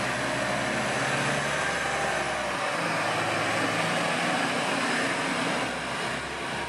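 DB class 633 (Pesa Link) diesel multiple unit running along the platform: a steady engine hum under a wash of running noise, which changes character about two and a half seconds in.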